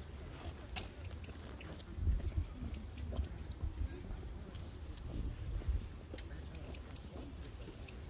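A small bird chirping in short clusters of quick high notes, repeating every second or so, over a low wind rumble on the microphone that swells a couple of times.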